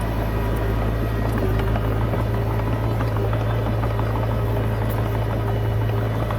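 Komatsu D20P bulldozer's diesel engine running steadily under load, a deep, even drone with light clattering over it.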